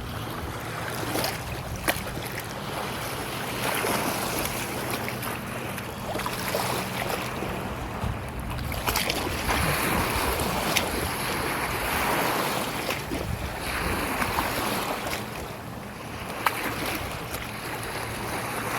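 Water swishing and splashing in surges every few seconds, with wind buffeting the microphone, as from a kayak being paddled. A few sharp knocks stand out.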